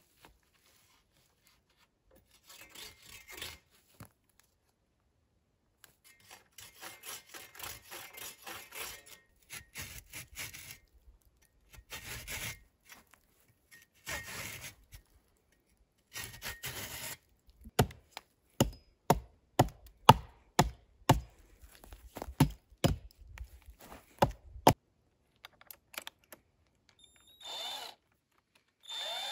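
Folding hand saw cutting a wooden post in short bursts of rasping strokes, followed by a run of sharp knocks on wood, about two a second and the loudest sounds here. Near the end a cordless drill whirs briefly.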